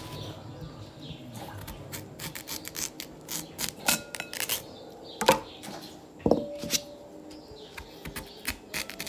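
Large kitchen knife cutting through a raw sweet potato on a tabletop: irregular crunching cuts and sharp knocks of the blade on the table, the loudest a little after five and six seconds in.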